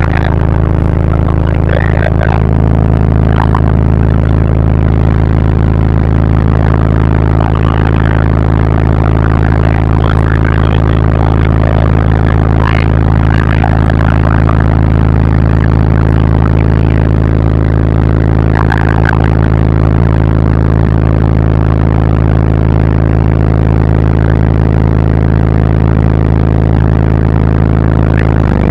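Four Fi BTL N3 18-inch subwoofers playing a steady, very loud low bass tone with buzzy overtones. This is a car-audio hair trick: the air pressure at the open windows is strong enough to blow people's hair around.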